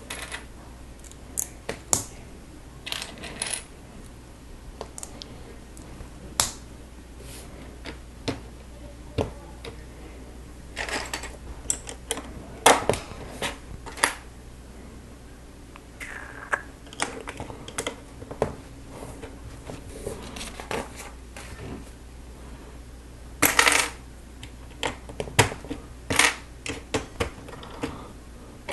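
Plastic Lego bricks being handled and snapped together: scattered, irregular sharp clicks and short rattles of pieces as the model is assembled.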